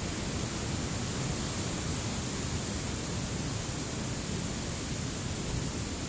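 Steady, even outdoor background noise: a constant hiss with a low, fluttering rumble underneath and no distinct events.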